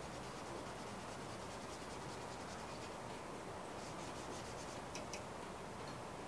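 Carbon pencil scratching and rubbing on drawing paper in quick, repeated short strokes, faint over room hiss, with a couple of small clicks about five seconds in.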